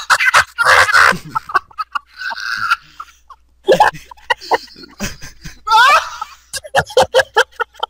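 People laughing hard in choppy, irregular bursts, with high-pitched rising laughs about six seconds in.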